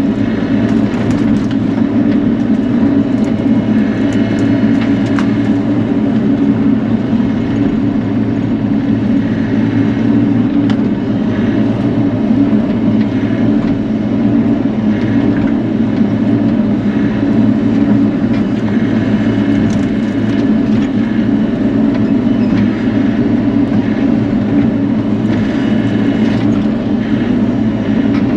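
Bobcat E42 mini excavator's diesel engine running steadily while it clears and grades, with a few faint knocks over the drone.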